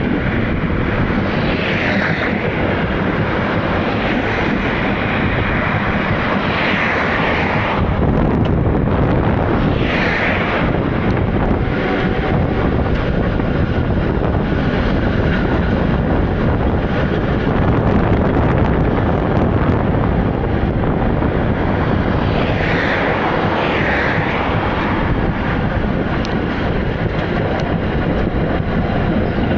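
Konstal 102Na articulated tram running, heard from inside: a steady loud rumble of wheels on rails and running gear, with a few short higher-pitched hissing swells.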